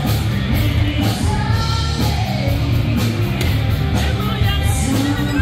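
Loud party music with a steady driving beat and a singing voice.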